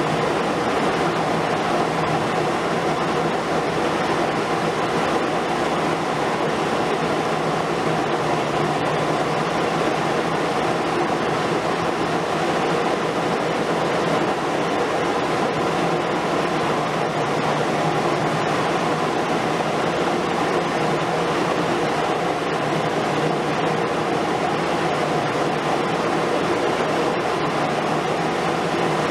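Diesel engines of heavy demolition excavators, a Liebherr R 950 Demolition long-front among them, running at a steady, even pitch with no distinct impacts.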